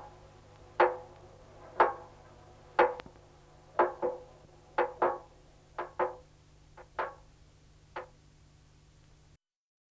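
Soundtrack music of single struck percussion notes, about one a second, each ringing briefly and growing fainter; a few come as quick double strikes. A low steady hum lies underneath, and everything cuts off suddenly near the end.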